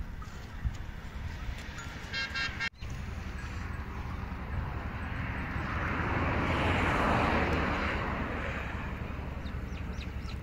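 Roadside traffic noise with a low steady rumble; a vehicle horn toots briefly about two seconds in. Later a broad rushing noise swells up and fades away over several seconds.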